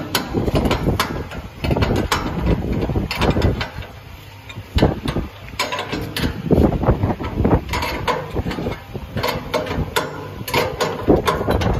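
Open-end steel wrenches working the nuts on the flange bolts of a screw mortar pump, making an irregular run of metal clicks and knocks as the bolts are tightened.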